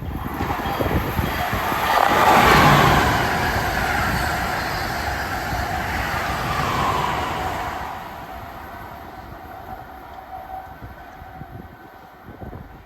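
Passenger train passing on the rails, loudest about two seconds in, then fading away after about eight seconds.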